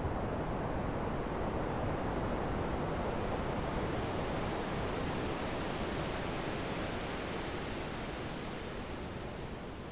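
Computer-generated ocean sound: a steady rush of noise from a Max/MSP noise-generator patch made to imitate surf. It fades gradually over the last few seconds.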